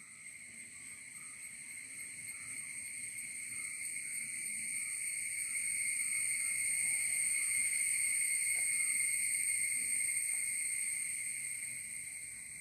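A chorus of insects calling in a steady high-pitched drone. It swells to its loudest about halfway through and then fades again.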